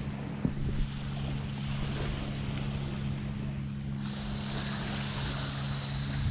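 Wind buffeting the microphone over a steady low engine drone. About four seconds in, the hiss of small waves washing up on the beach comes in.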